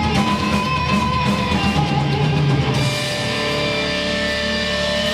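Heavy rock music with guitar and drum kit; about three seconds in the drumming falls away and held notes ring on.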